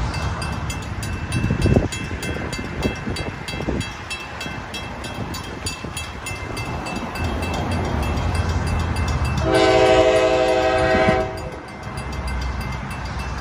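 Railroad grade-crossing warning bell ringing in an even repeated rhythm under street traffic. About nine and a half seconds in, an approaching train's horn sounds one loud blast of well under two seconds.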